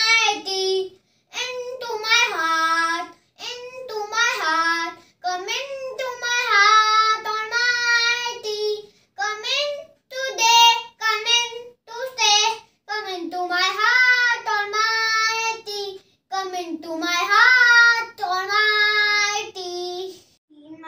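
A young boy singing a prayer song solo and unaccompanied, in short phrases with brief pauses between them.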